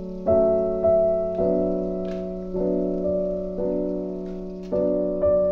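Background piano music, slow and gentle, with a new chord or note struck roughly every second and left to ring away.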